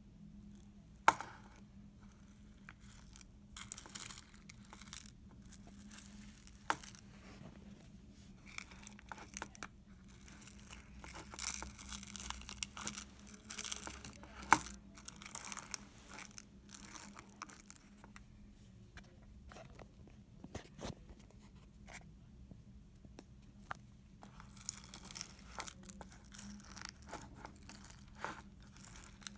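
Slime being squished and stretched by hand, giving irregular sticky crackles, tearing sounds and sharp pops, with quieter pauses between handfuls.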